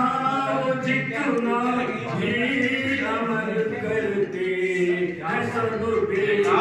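A man chanting Urdu devotional verse in long, held melodic lines, unaccompanied.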